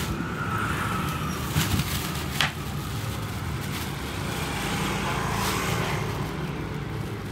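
Steady rumble of motor traffic, with a thin plastic bag rustling and crinkling as it is twisted and tied around a coconut. The sharpest crackles come about one and a half and two and a half seconds in.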